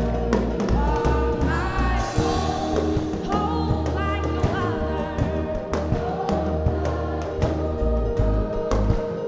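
Youth gospel choir singing an upbeat song with band backing: a steady bass line under the voices and a regular drum beat.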